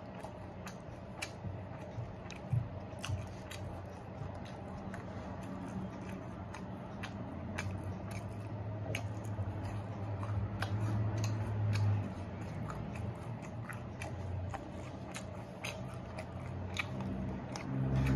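Close-up chewing and lip-smacking of crunchy sesame chicken, with many sharp wet mouth clicks, over a low steady hum.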